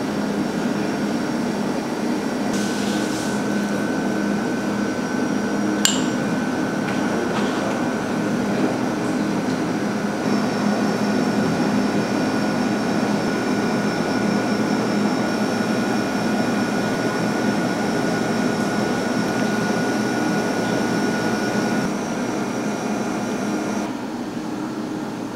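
Steady machine hum with a few fixed whining tones over an even noise, and a single sharp click about six seconds in.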